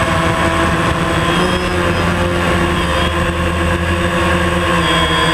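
DJI Phantom quadcopter's four electric motors and propellers whining steadily in flight, heard close up from the camera mounted on the drone; the pitch wavers slightly as the motors adjust.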